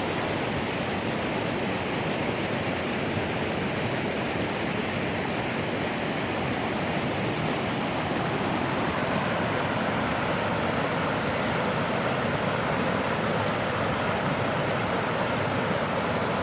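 Steady rushing of river water tumbling over a series of small drops and rapids.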